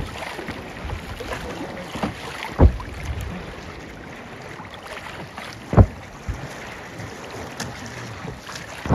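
Humpback whale slapping its tail on the surface: dull, low thumps about every three seconds over wind and choppy water.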